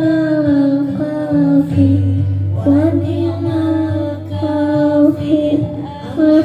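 A sholawat, an Islamic devotional song, with a singer drawing out long, ornamented notes that bend in pitch over a low, steady accompaniment.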